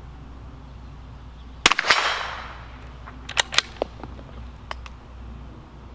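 A single .22 LR shot from a Bergara B-14 bolt-action target rifle, with a brief echo dying away. About a second and a half later come several quick sharp clicks as the bolt is worked, then a couple more clicks.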